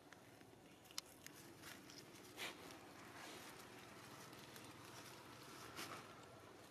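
Near silence: faint outdoor ambience with a sharp click about a second in and a few soft rustles, like movement on dry leaves and dirt.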